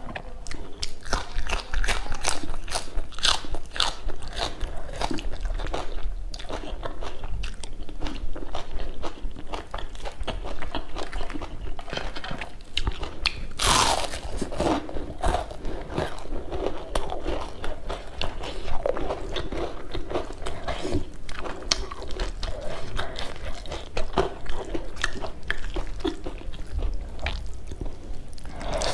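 Close-miked crunching and chewing of crispy batter-fried chive pakoras (nakuppi bora) and rice, eaten by hand, with many small crisp crunches. About fourteen seconds in comes one loud, sharp crunch as a pakora is bitten.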